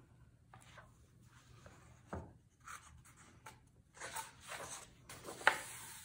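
Faint handling of a hardcover picture book on a wooden table: scattered soft taps and paper-and-board rustles as the cover is opened, with a sharper click near the end.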